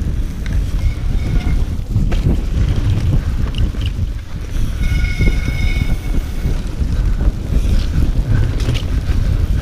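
Wind rushing over the camera microphone and the rumble of a 29er mountain bike rolling fast over a snowy, bumpy trail, with a few knocks from bumps. A brief high-pitched squeal sounds about five seconds in.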